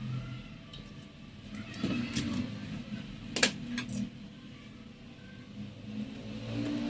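A handful of sharp clicks and taps, the loudest about three and a half seconds in, over a low steady hum.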